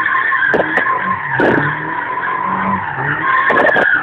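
Toyota Sprinter Trueno's tyres squealing steadily as the car spins donuts, heard from inside the cabin, with the engine running underneath. A few sharp knocks cut through the squeal.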